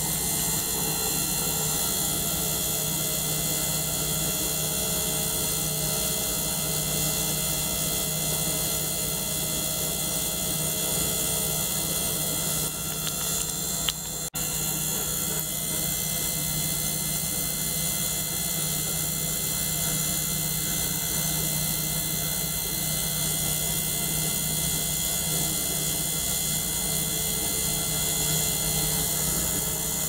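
A small ultrasonic cleaner and a small liquid-circulation pump running together: a steady hum with several high steady tones over a hiss. It drops out briefly about 14 seconds in.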